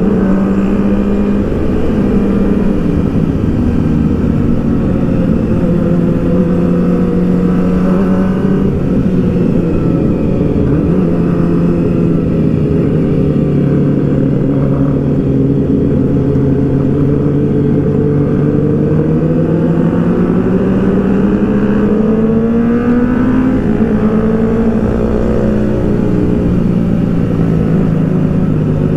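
Kawasaki ZX-6R (636) inline-four engine running at low road speed, loud through its exhaust. Its pitch slowly sinks, rises again about two-thirds of the way in, then falls back.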